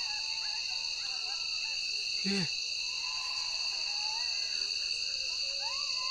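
Night insect chorus: crickets and other insects trilling steadily in a high shrill drone, with faint short wavering calls underneath and a brief low call about two seconds in.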